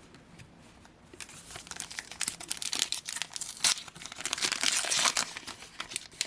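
Wrapper of a Panini Adrenalyn XL trading-card pack crinkling and tearing as it is pulled open by hand, starting about a second in.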